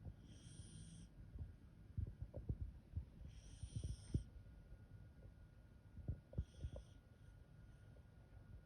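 Welsh corgi snoring softly in its sleep. A breath comes about every three seconds, each with a faint high hiss, over a low rattly rumble.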